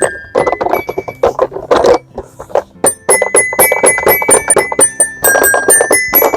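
Toy xylophone being played: irregular taps and clatter at first, then about three seconds in a quick run of short, ringing, bell-like notes, about six a second.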